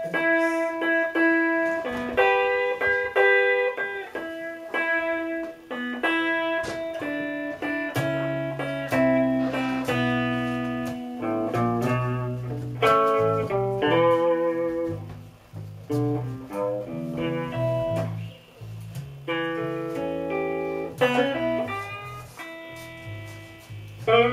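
Two electric guitars playing a slow blues instrumental, picked single notes and chords, with a lower bass line joining about eight seconds in.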